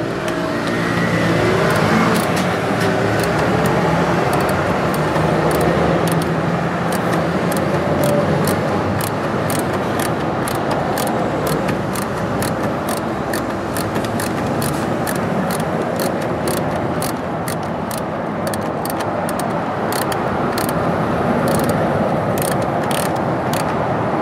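Ratchet clicking in short irregular runs as a bolt holding the cab's interior trim panel is driven in by hand, over a steady background noise.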